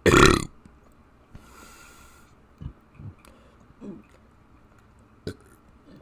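A person burping: one loud, short burp at the start, followed by a few faint short sounds and a sharp click.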